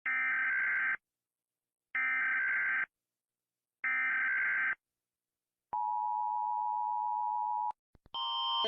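Emergency Alert System alert: three bursts of screeching data tones, about a second each and a second apart, then the steady two-tone attention signal for about two seconds. Near the end another alarm sound begins.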